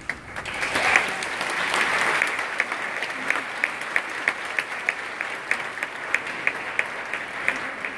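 Audience applause that swells up within the first second and holds steady, with one clapper close by standing out, about three claps a second.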